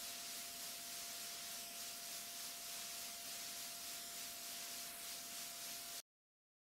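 Steady hiss with a faint constant tone running under it: background noise of the hall's recording or sound system. It cuts to total silence briefly near the end.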